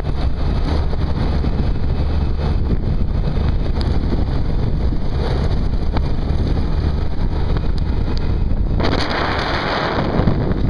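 ATV riding on a gravel road: the engine's steady low rumble mixed with wind buffeting the microphone. About nine seconds in, a louder hiss joins.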